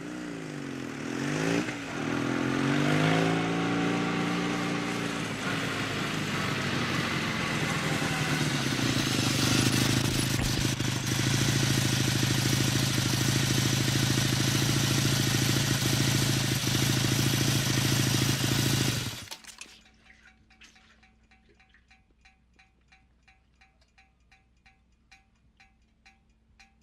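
Motorcycle engine revving up and down, then held at steady high revs for about ten seconds before cutting off suddenly. After it stops, a faint, rapid, even ticking is left, about four ticks a second.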